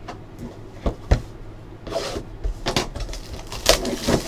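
Hands handling a sealed cardboard box of trading cards: two sharp knocks about a second in as the box is handled, then the crinkling and tearing of its wrapper as it is opened.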